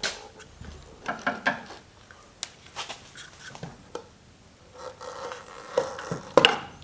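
Scattered knocks, clicks and light clatter of tools and scooter parts being handled, busier near the end with a short scrape about five seconds in.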